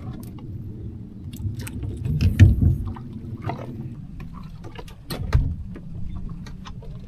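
Scattered clicks and knocks aboard a small fishing boat, over a steady low rumble, with two louder thumps about two and a half and five and a half seconds in.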